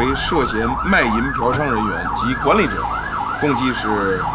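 Police car siren in fast yelp mode: a wail rising and falling about four times a second, steady throughout.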